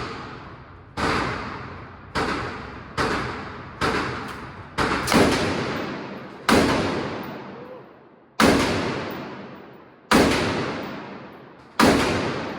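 AR-style rifle firing about ten single shots at an uneven pace, quicker at first and then slower and evenly spaced, each shot followed by a long echoing decay.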